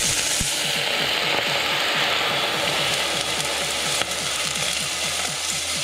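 Water poured into a hot stainless steel pot holding a little oil and browned garlic, hissing and sizzling loudly as it hits the hot metal and flashes to steam; the hiss eases a little near the end.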